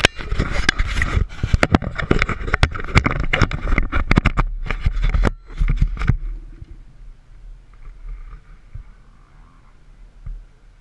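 Close handling noise from an action camera held against a motocross helmet: rapid clicks, scrapes and knocks for about six seconds, then it drops to faint rubbing and rustle.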